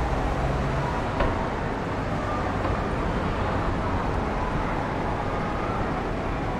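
Steady distant roar of the Blue Impulse team's Kawasaki T-4 jets flying past in formation, with road traffic underneath and one short click about a second in.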